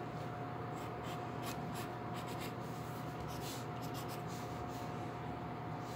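Graphite pencil scratching on drawing paper in many short, quick strokes, over a steady faint background hum.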